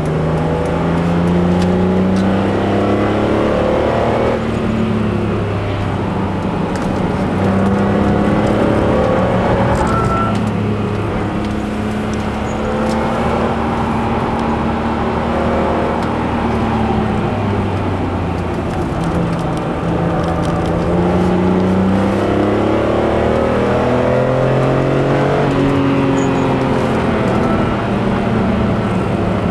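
BMW E46 M3's 3.2-litre straight-six heard from inside the cabin, driven hard on track. Its pitch climbs under acceleration and drops sharply at upshifts about four seconds in and again near the end, easing off and rising again through the corners in between.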